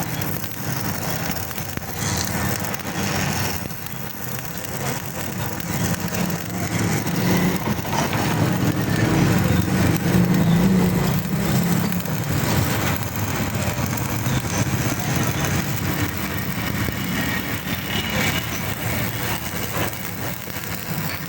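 Lathe machine running: a steady mechanical noise, swelling a little around ten seconds in.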